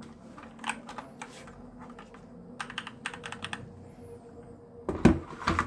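Keychron K10 mechanical keyboard with brown switches being typed on: scattered keystrokes, a quick run of them in the middle, then a couple of heavier, deeper thumps near the end.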